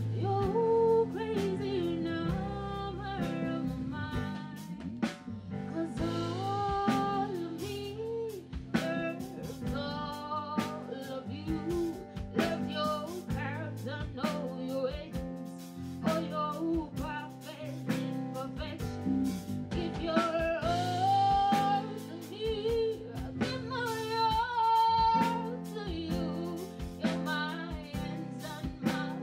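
Live band playing a song: a woman sings lead with vibrato over Yamaha Motif keyboard, guitar, bass and a drum kit keeping a steady beat.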